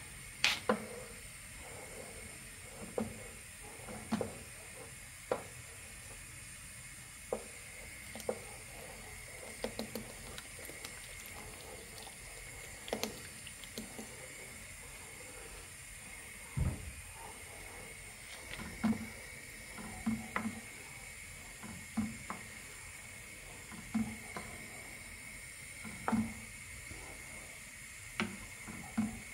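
A thick sauce with chicken simmering in a frying pan on a gas burner: bubbles pop about once a second over a steady hiss. Midway, cream is poured in, with one low thump soon after, and near the end the sauce is stirred.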